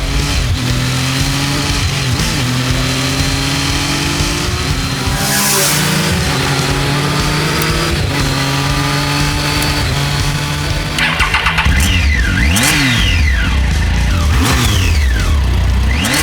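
Triumph Street Triple 675 inline-three motorcycle engine running at a steady pitch. About two-thirds of the way in it is revved repeatedly, climbing and falling in quick sweeps, with a brief stutter as the revving begins.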